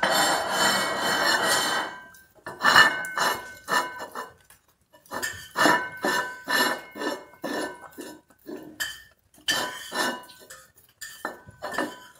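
A dog licking a china plate clean and pushing it across a tiled floor: the plate scrapes and clinks on the tiles under the tongue, with a faint ring from the plate. A long continuous scrape comes first, then separate licking strokes, two or three a second, with short pauses between them.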